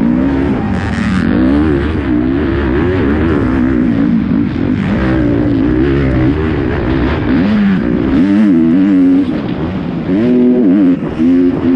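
Kawasaki KX250 four-stroke single-cylinder motocross engine, heard up close from on the bike, revving hard under race throttle. Its pitch climbs and falls again and again through gear changes, with the throttle briefly chopped about eight seconds in and again near the end.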